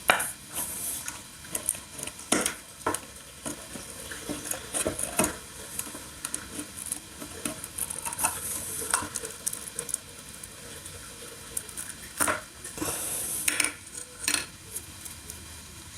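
Scattered clicks and clinks of small tools and containers being handled, with short stretches of scraping, about a second in and again near the end.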